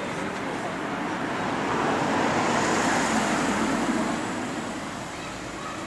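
A car driving past on the street, its tyre and engine noise swelling to a peak about three seconds in and then fading, over steady street traffic noise.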